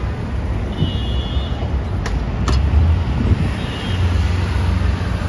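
City street traffic: a steady heavy low rumble of passing motor vehicles, with a brief high-pitched whine about a second in and two sharp clicks around halfway.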